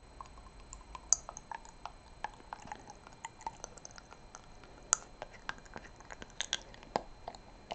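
Pencil end stirring thick, gloopy, partly dried liquid gold leaf gilding paint in a small bottle: a run of small irregular clicks and sticky squelches, with a few sharper taps.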